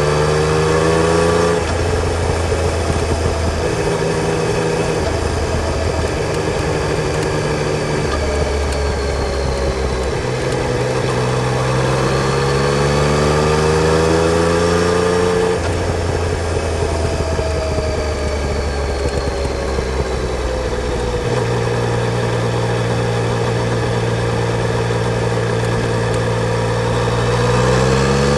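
Yamaha Tracer 900 GT motorcycle's inline three-cylinder engine running under way. Its pitch climbs several times and then drops or steps as the gears change, over steady rushing noise.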